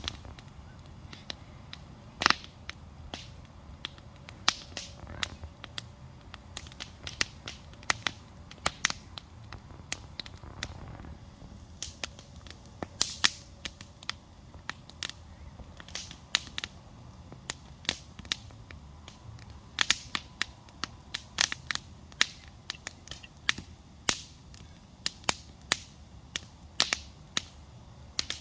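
Wood campfire crackling: irregular sharp pops and snaps, some loud and some faint, over a faint low rumble.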